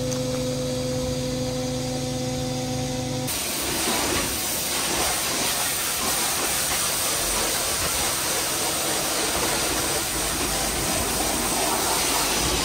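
A milk tanker's pumping machinery hums steadily while drawing milk from a farm bulk tank. About three seconds in, it gives way to a high-pressure washer jetting water over metal livestock pens, a loud steady hiss of spray.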